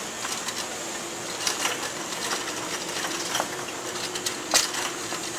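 Shopping cart rattling and clicking irregularly as it is pushed along, with a faint steady hum that comes in about a second in.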